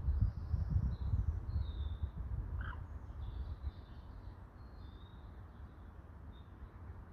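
Small birds chirping faintly over a low rumble that is loudest in the first few seconds and then eases off, with one slightly louder short call a little under three seconds in.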